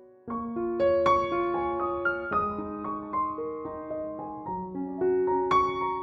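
Background piano music: a gentle melody of single notes over held chords, coming back in about a quarter second in after a brief fade.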